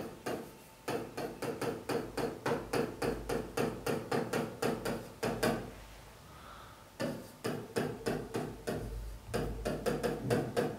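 A pen or marker writing on a board, heard as quick taps of its tip at about five strokes a second. There are two runs of writing with a pause of about a second and a half between them.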